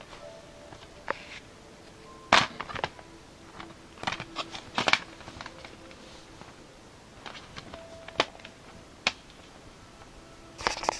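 Plastic Blu-ray packaging being handled: scattered sharp clicks and crinkles, the loudest about two seconds in and others near the middle and end.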